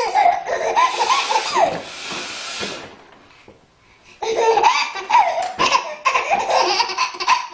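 Laughter in a run of short, high-pitched bursts. It breaks off for about a second a little past halfway, then starts again.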